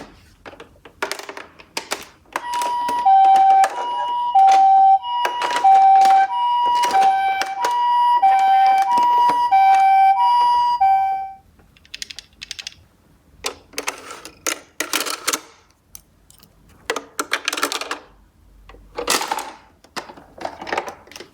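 Toy ambulance minicar's electronic two-tone siren, the Japanese ambulance 'pee-paw', alternating high and low about once a second for around eight seconds. Small toy cars clatter throughout, and in the second half several rolling rushes run down the slope.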